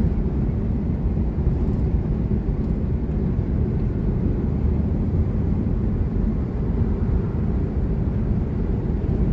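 Steady low rumble of road and engine noise inside a moving camper van.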